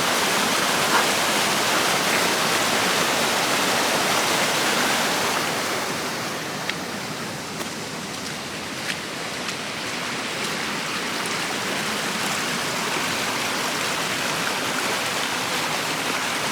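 Storm runoff rushing fast out of a pipe under a road into a swollen stream: a steady, loud rush of water that softens a little about six seconds in.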